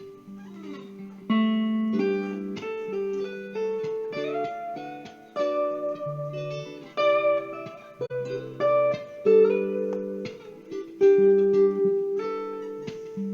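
Guitar music: plucked notes and chords ringing out one after another, with a few notes sliding up or down in pitch.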